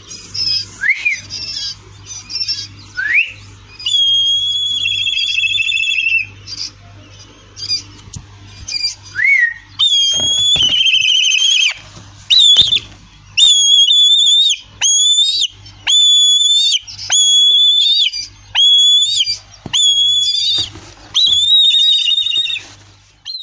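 Black kite calling: high, clear whistles, broken and uneven at first with a couple of short upward slurs, then a steady series of drawn-out whistles, each held level and dropping sharply at the end, about one a second.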